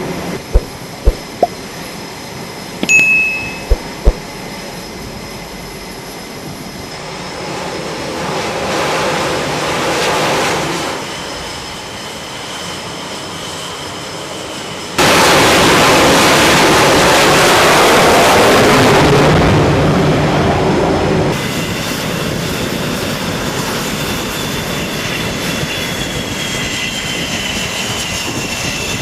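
Jet aircraft noise on a carrier flight deck. A few sharp knocks come first, then engine noise swells. About halfway through, a much louder blast of jet noise starts and stops abruptly, and after it a steadier jet whine with a high tone remains.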